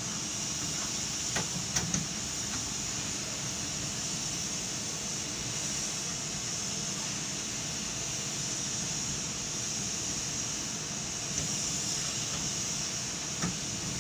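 Steady mechanical hiss and hum of a 12-ton jib crane's machinery, heard from inside its operator cab while it hoists a bulk bag of sand, with a few light clicks about two seconds in and again near the end.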